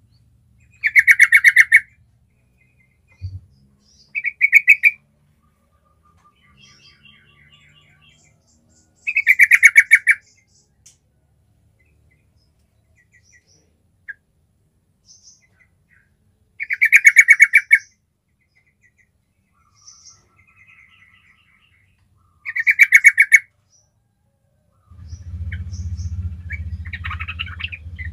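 Yellow-vented bulbul singing: five loud, bubbling, chattering phrases of about a second each, with softer short notes in between.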